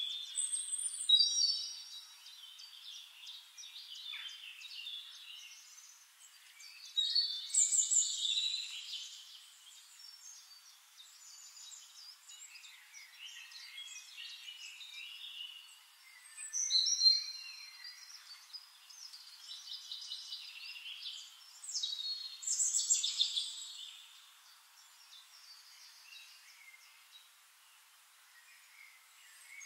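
Birds singing and chirping, in bursts of calls every few seconds with quieter stretches between; the sound is thin, with no low end.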